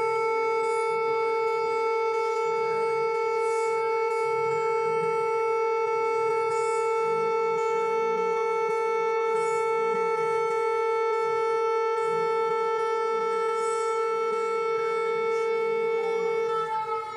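Slowed-down Emergency Alert System alarm tone: a low, steady electronic tone with many overtones, held without a break. A faint fluttering rumble runs beneath it.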